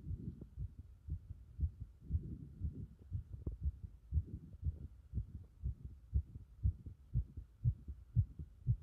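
Human heartbeat picked up close against the chest: a regular run of low, dull thumps, about two a second. At times a hazier rumble swells over the beats as the chest is pressed in.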